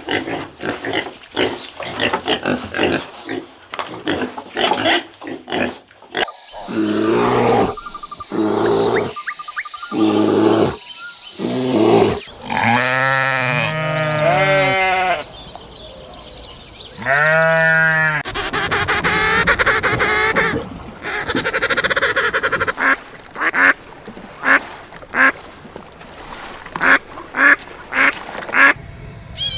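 A run of different farm animal calls one after another: rapid clicking sounds at first, then pitched calls, some of them arching up and down in pitch around the middle, and short sharp sounds near the end.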